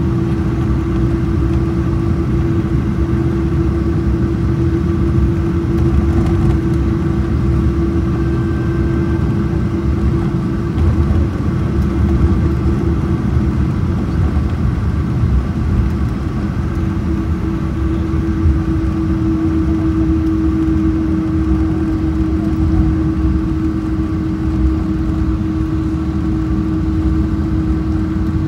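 Cabin noise of a Boeing 777 taxiing, heard from inside: a steady rumble from the jet engines and airframe with a constant hum tone, which shifts slightly in pitch about two-thirds of the way through.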